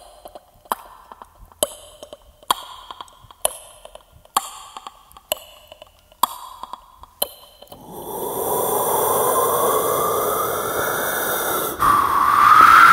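Vocal mimicry of a ticking clock: sharp mouth clicks about once a second. About eight seconds in it gives way to a vocal imitation of wind, a hissing rush with a whistle that rises and falls, getting louder near the end.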